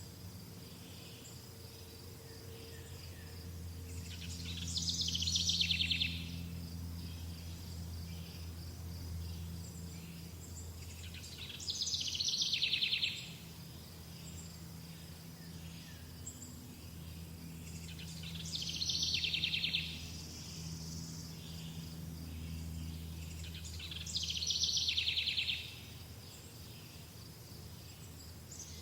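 A songbird repeats the same descending, rapidly trilled song phrase four times, about every six to seven seconds. Beneath it runs a steady, evenly pulsing high chirring like crickets, with a low steady hum.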